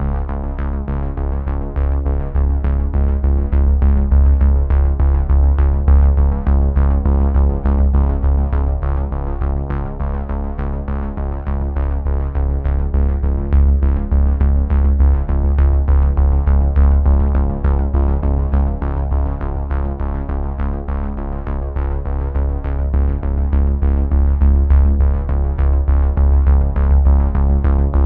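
Background music: a synthesizer track with a deep bass and a steady beat.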